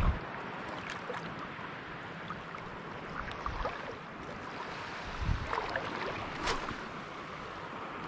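Gentle lapping of calm, shallow sea water with light wind, a soft thump a little after five seconds in and a sharp click about six and a half seconds in.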